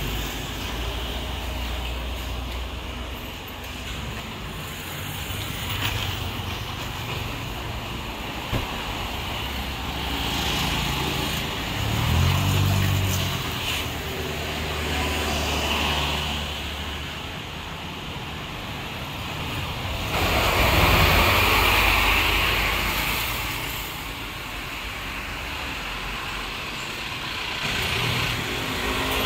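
Street traffic: a steady rumble of vehicles passing, with one engine's drone about twelve seconds in and a louder vehicle going by around twenty to twenty-three seconds in.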